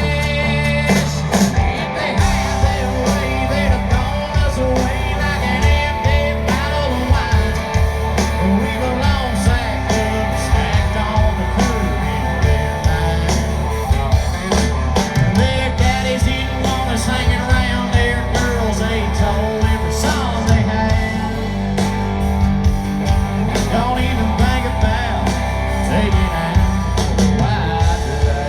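Live country-rock band playing loudly, with a male lead voice singing over electric guitar and a steady drum beat.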